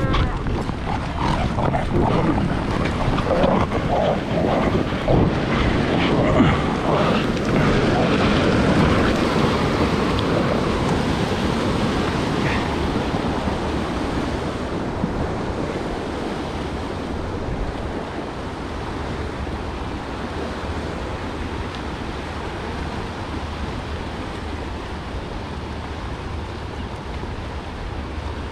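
Wind blowing across the microphone over the wash of surf on a sandy shore. It is louder and more uneven for the first dozen seconds, then settles into a steadier rush.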